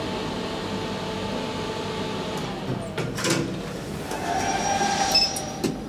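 2012 SMW traction elevator just arrived at its landing: a steady machinery hum that drops in pitch and fades about halfway through, then a sharp click and the door being pushed open by its handle. A higher ringing hum with a couple of clicks follows near the end.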